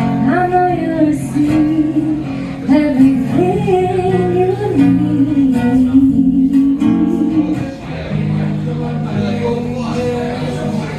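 Live acoustic performance: singing with long held, sliding notes over strummed acoustic guitar.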